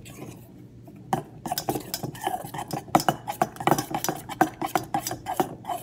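Metal spoon stirring slime in a stainless steel mixing bowl, knocking and scraping against the bowl. Quick irregular clinks start about a second in and run on, as the glue is mixed with activator.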